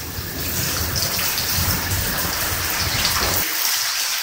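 Heavy rain falling and splashing on concrete, a steady hiss of many drops. A low rumble under it drops away about three and a half seconds in.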